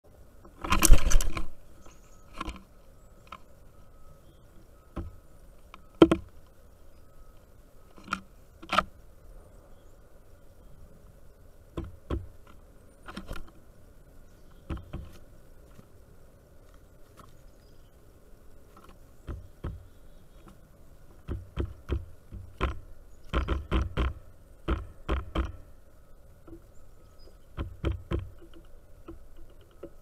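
Birds pecking and moving about on a wooden platform feeder heaped with seed, giving irregular knocks, taps and scrapes. There is a loud clatter about a second in and a run of quick taps in the last third. A faint steady hum sits underneath.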